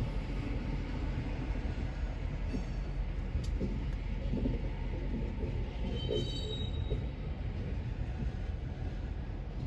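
Loaded coal hopper cars of a freight train rolling slowly past: a steady low rumble of wheels on rail, heard from inside a car. A brief high squeal about six seconds in.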